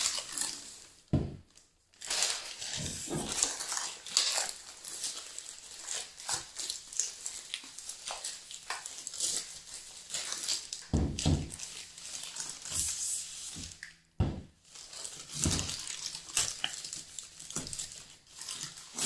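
Plastic mailer bag crinkling and rustling as body wash bottles are pulled out of it, with a few knocks of plastic bottles being set down on a table.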